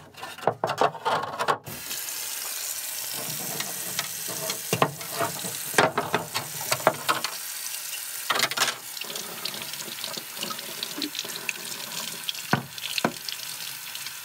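Tap water running into a utility sink as a rusty chisel is rinsed under it, washing off the rust sludge left from electrolysis. There is handling clatter before the tap comes on about two seconds in, and a few sharp knocks of the chisel and pipe against the sink.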